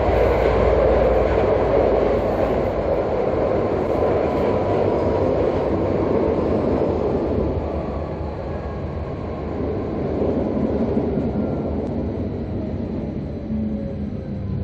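Running noise inside a Bombardier SN 2001 low-floor tram: a steady rumble and rolling noise, easing a little over the second half, with a faint whine falling in pitch near the end.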